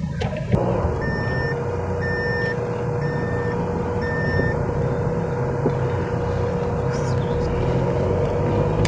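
Mahindra Marazzo's seat-belt reminder chime beeping four times, evenly spaced, over the steady hum of the car heard from inside the cabin. The beeps warn that a seat belt is unfastened. A thump about half a second in.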